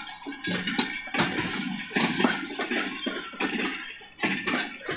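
Passenger coaches rolling past at speed, the steel wheels clattering over the rail joints in repeated irregular knocks over a steady rushing noise.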